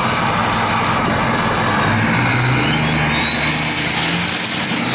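Ford 6.0 Power Stroke V8 turbo-diesel, straight-piped with no muffler, accelerating, heard from inside the truck's cab. About halfway in, the whistle of its Powermax turbo spooling up rises steadily in pitch.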